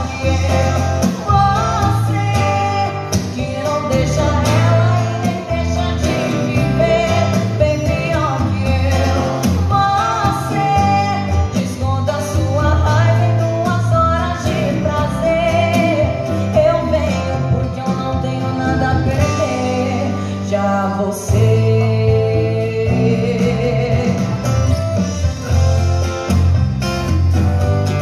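A woman sings a sertanejo song into a microphone, amplified through PA speakers, with steel-string acoustic guitar accompaniment. By the end her voice stops and the guitar plays on.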